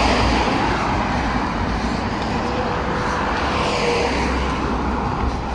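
Steady road-vehicle noise, a continuous rumble and hiss.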